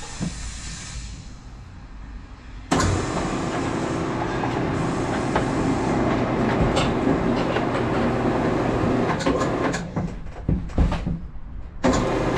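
KWM IronMan 5-inch K-style gutter machine starting up suddenly about three seconds in and running steadily, its chain drive and forming rollers pulling a test piece of gutter coil through. It stops near ten seconds, followed by a few sharp knocks.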